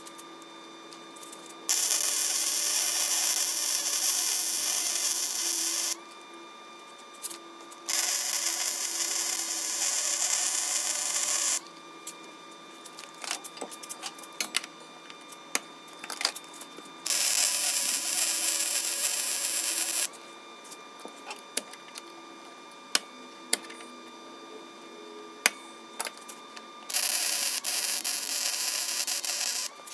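Welding arc crackling in four runs of three to four seconds each as beads are laid to weld frame connectors to a 1965 Mercury Comet's frame rail, with scattered clicks in the pauses between runs.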